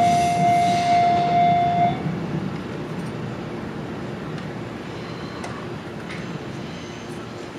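Japanese railway level-crossing alarm sounding its repeating electronic tone, which cuts off about two seconds in. Under and after it, the low rumble of the passing train slowly dies away.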